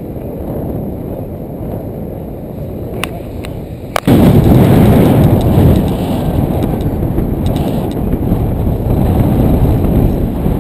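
Wind buffeting a GoPro's microphone, a steady low rumble. About four seconds in there is a sharp click, after which the wind noise becomes much louder.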